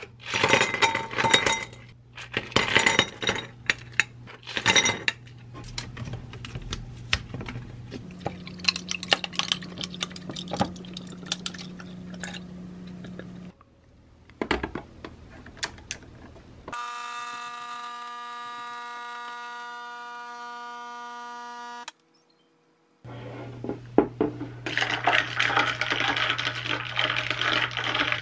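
Ice cubes clattering into an empty drinking glass in a few sharp, clinking drops. Midway a capsule coffee machine's pump hums steadily for about five seconds and cuts off abruptly. Near the end a straw stirs ice in a glass with a continuous clinking rattle.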